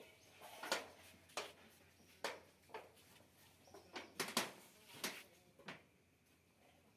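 Leafy vines rustling and snapping as they are pulled by hand, in about eight short, sharp, irregular cracks that stop about six seconds in.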